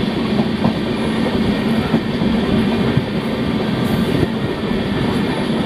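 Passenger train running on the rails, a steady rumble of wheels on track.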